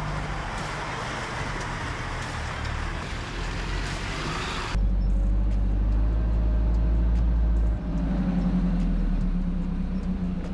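4x4 truck engine running as the truck crawls over a muddy track, with a broad hiss of tyre and track noise and scattered clicks. About five seconds in this cuts off suddenly to a louder, steady low engine drone from a truck driving along a dirt track, with a tone that slowly rises and falls.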